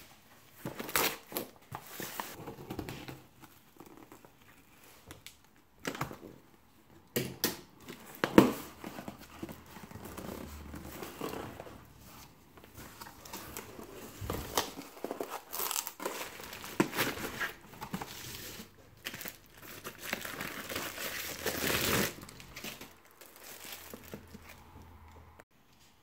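Cardboard parcel being opened by hand: packing tape tearing, cardboard flaps and packing handled, and bubble wrap crinkling. Irregular rustling with a few sharp clicks, and a longer stretch of crinkling near the end.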